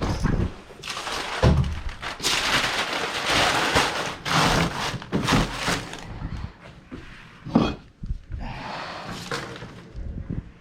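Sweeping and handling things on a bedroom floor: a broom brushing in strokes, with several thuds and knocks as objects are moved, the loudest about a second and a half in and again near the three-quarter mark.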